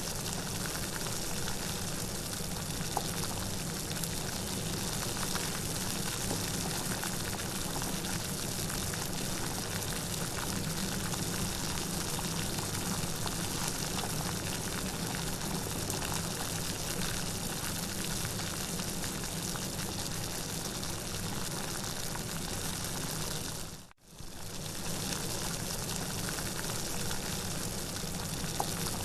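Steady heavy rain, an even downpour with no distinct drops standing out. Near the end it cuts out for a split second and starts again unchanged.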